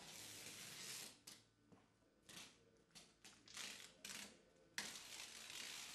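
Black adhesive tape being pulled off its roll and pressed along a wall edge: a long hissing pull at the start, several short tearing pulls in the middle, and another long pull from about five seconds in.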